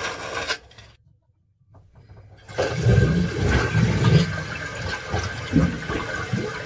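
A utility knife blade scrapes through the sealant at the base of a toilet for under a second. After a short gap, from about two and a half seconds in, the toilet flushes, water rushing and surging down the drain while air escapes through the vent gap cut in the sealant.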